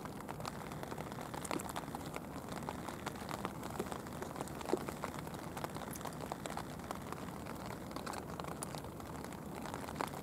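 Steady rain falling: a continuous hiss dotted with many separate small drop ticks.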